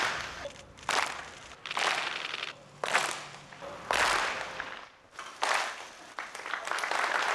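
Ippon-jime, a large group's single closing handclap, many hands struck together at once, heard about six times roughly a second apart, each stroke ringing out briefly. Steady applause sets in near the end.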